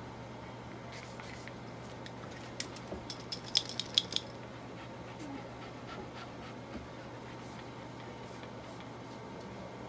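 A poodle shifting and twisting on a steel examination table: a quick run of sharp metallic clicks and jingles about three to four seconds in, over a steady low hum.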